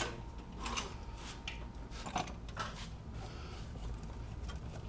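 Engine-hoist chain and metal parts clinking and knocking irregularly as the hanging engine and transmission are eased into the engine bay, with the loudest knock about two seconds in, over a steady low hum.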